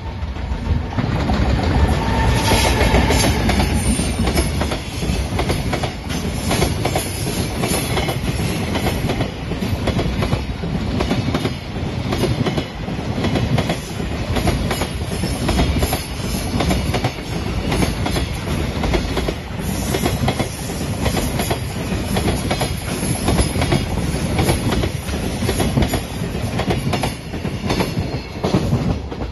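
Long JR container freight train, hauled by an electric locomotive, passing close by: a heavy rumble with the wheels clicking in a steady rhythm over the rail joints, loudest in the first few seconds as the locomotive goes by.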